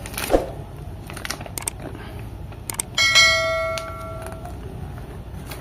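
A single bell-like chime, the ding of an on-screen subscribe-button animation, sounding about three seconds in and fading over about a second and a half. Around it, light rustling and crinkling of a folded paper instruction leaflet being opened.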